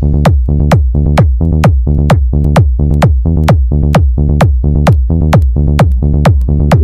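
Electronic dance music with heavy sub-bass and a kick drum hitting about twice a second; a rising sweep starts near the end.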